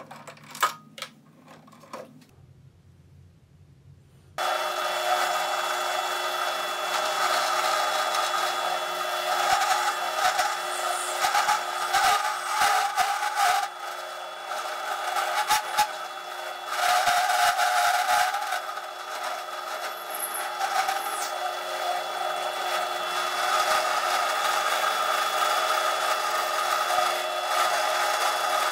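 A few clicks, then about four seconds in a drill press motor starts running with a steady hum while an end mill cuts high-density plastic held in a cross slide vise, the rasping of the cut swelling and easing as the work is fed.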